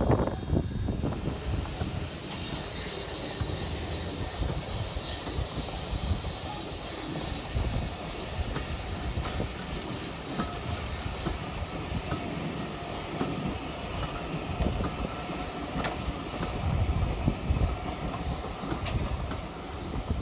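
Passenger coaches rolling past on the track, their wheels clicking over the rail joints with some squeal, and steam hissing. A heavier rumble in the first second is followed by a steady hiss that eases after the halfway point.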